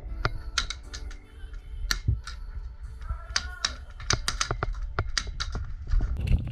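A rapid, irregular run of sharp snapping clicks, several a second, over background music.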